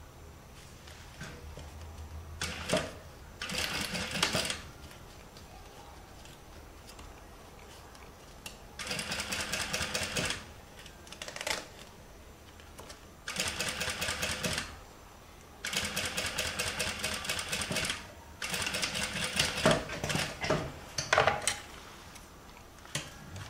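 Industrial sewing machine stitching in about five short runs of one to two seconds each, stopping and starting as the seam is sewn around a curve, with a few sharp clicks near the end.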